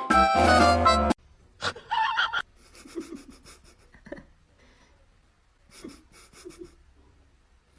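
Background music cuts off about a second in. A short sound follows, then faint, quick panting breaths in two short bouts.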